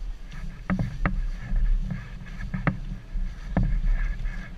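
Wind rumbling on the microphone of a pole-held action camera, with a few sharp knocks from the camera pole being handled and a faint steady whine.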